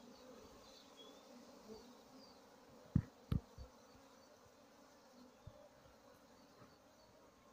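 Bees buzzing steadily around a colony being opened for its honey. Three dull knocks come in quick succession about three seconds in.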